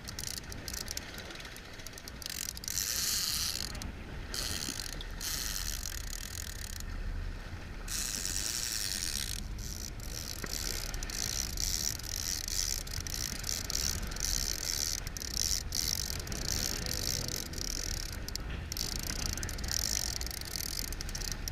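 Fishing reel ticking like a ratchet for a long stretch, over a steady low rumble.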